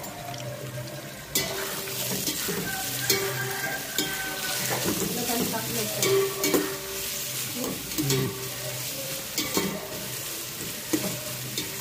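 Sliced onions and whole spices sizzling in hot oil in a stainless steel pot as they are stirred and tossed with a metal slotted spoon. The sizzle gets louder about a second in, and the spoon scrapes and knocks against the pot now and then.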